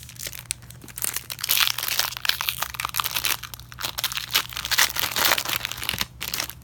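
Wrapper of a Panini Optic football card pack crinkling and crackling as it is torn open and crumpled. The crackling starts about a second in and stops near the end.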